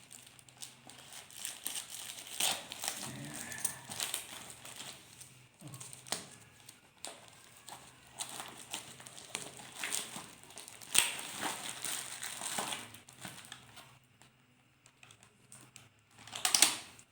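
Packaging crinkling and rustling in irregular bursts as it is handled and unwrapped by hand. It goes quiet for a couple of seconds near the end, then comes one loud crackle.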